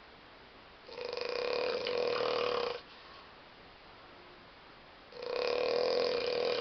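A person snoring: two long snores about four seconds apart, each lasting about two seconds with a steady pitched tone.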